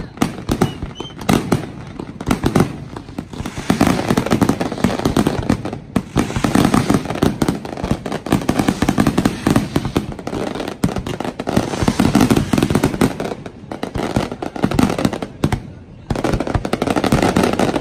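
Fireworks display: many aerial shells bursting in rapid, overlapping bangs and crackles, in dense waves with brief lulls between.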